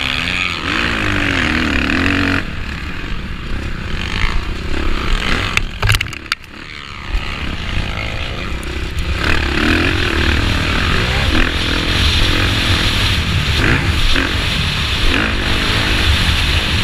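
A motocross bike engine heard on board, revving up and down through corners and straights with heavy wind noise on the microphone. About six seconds in, a few sharp knocks sound and the engine drops away briefly, then revs back up.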